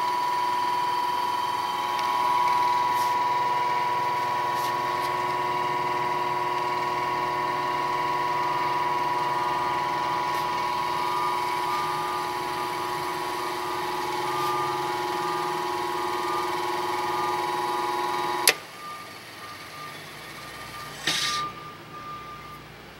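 Hobart HCM300 vertical cutter/mixer running, its 5 hp motor spinning the cutter knives with a steady whine. About eighteen seconds in, a sharp click and the whine cuts off suddenly, leaving a couple of faint knocks.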